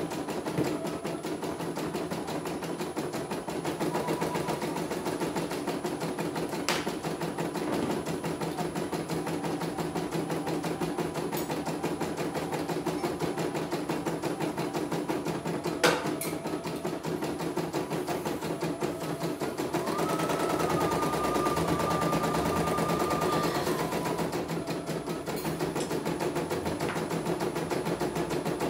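CNY E900 portable computerized embroidery machine stitching a test design, its needle going in a rapid, steady rhythm as the hoop shifts. There are two sharp clicks, one about a quarter of the way in and a louder one a little past halfway, and a thin whine lasts a few seconds later on.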